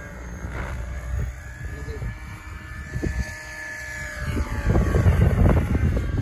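Kraken 700 electric RC helicopter in flight: rotor and electric motor noise with a high whine that bends up and back down in pitch in the middle as it manoeuvres. Near the end a louder low rush of wind on the microphone comes in over it.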